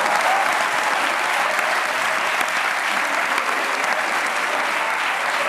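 Dense, steady applause in response to a horse-neigh imitation.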